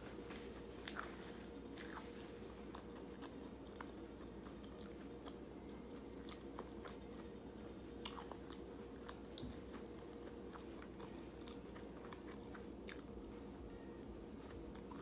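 A person chewing food close to the microphone, with many small irregular mouth clicks and smacks, over a faint steady hum.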